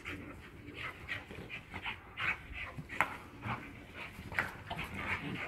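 An American Staffordshire terrier and a French bulldog panting as they play, a quick, uneven run of short breaths, with a brief sharp click about three seconds in.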